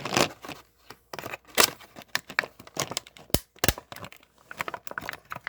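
Toy minifigure packaging being torn open and crinkled by hand, a run of irregular crackles and rustles.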